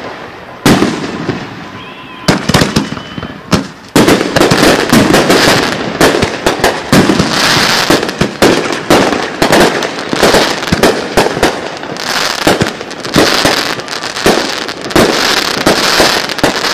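Aerial fireworks bursting in a finale barrage. A few separate loud bangs come first, then from about four seconds in the bursts come thick and fast over a constant crackle.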